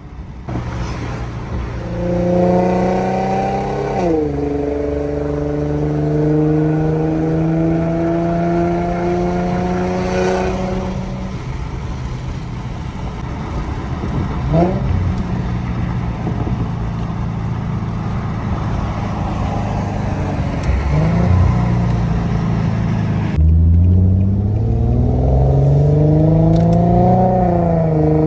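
Infiniti G37's 3.7-litre V6 through a full Motordyne exhaust with art pipes, pulling under throttle. The pitch rises, drops sharply at an upshift about four seconds in, then climbs slowly. A couple of brief rev changes follow midway, and near the end it pulls hard again with another shift.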